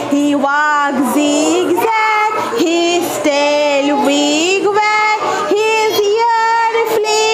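A woman leading a group of young children singing a nursery rhyme together, the melody going on without a break.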